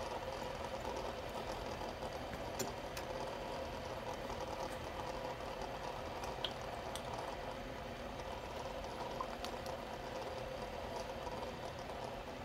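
Several fidget spinners spinning freely on their ball bearings: a steady whir, with a few faint ticks.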